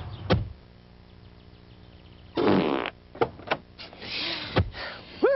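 A fart a little before halfway through: one short buzzy blast about half a second long, followed by a few light clicks and knocks.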